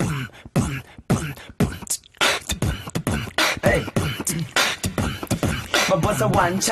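A person beatboxing into a microphone: a steady run of mouth-made kick and snare strokes, sparse for the first two seconds and then quicker and denser, laying down a beat for a rap.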